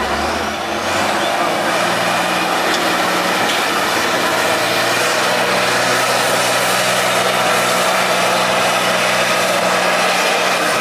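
Tatra 813 eight-wheeled trial truck's diesel engine running steadily under load as the truck climbs a steep dirt slope; the engine note rises about a second in and then holds.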